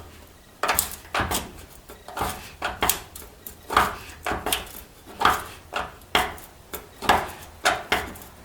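Metal clacking about twice a second as a wrench is worked back and forth on a nut welded onto a sheared, rusted fender bolt, trying to back the bolt out.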